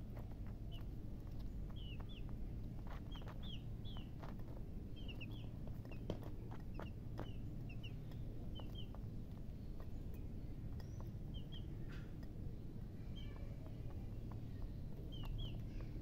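Baby chicks peeping: short, high chirps, many of them in quick pairs, scattered throughout. Scattered light clicks and a steady low hum run underneath.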